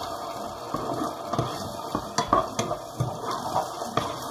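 Chopped onion and garlic sizzling in a little oil in a frying pan while being stirred, with irregular clicks and knocks of the spatula against the pan.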